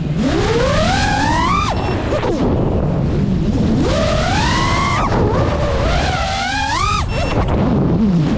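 FPV quadcopter's brushless motors whining, the pitch climbing as they speed up and then dropping sharply, three times, over a steady rush of wind on the microphone.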